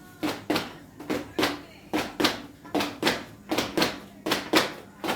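Rhythmic sharp knocks in quick pairs, about one pair a second, each with a short ring.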